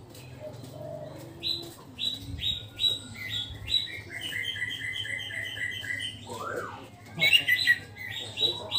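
Orange-headed thrush singing just out of its moult: a run of short, falling whistled notes, then a fast string of repeated notes about three a second, then another loud burst of notes near the end.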